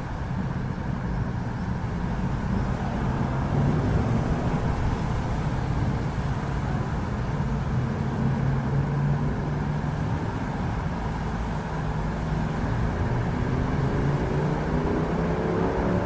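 City thunderstorm ambience: a steady low rumble, with a motor vehicle's engine rising in pitch as it accelerates near the end.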